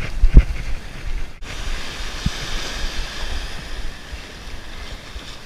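Small surf washing up the beach, with wind buffeting the microphone in low thumps for the first second and a half, then a steady hiss of breaking wash.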